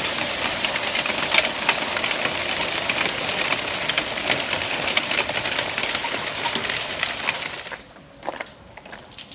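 Hail falling hard: a dense, fast clatter of many small hailstones striking the ground. Near the end it falls away sharply to scattered separate ticks.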